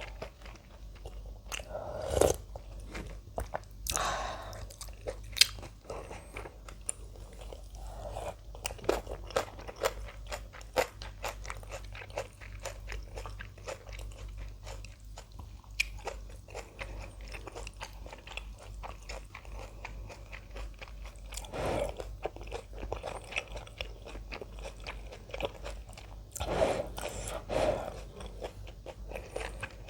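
Close-miked eating of ramen with kimchi and radish kimchi: continuous crunchy chewing and biting, many small sharp clicks, with a few louder, longer noisy bursts scattered through.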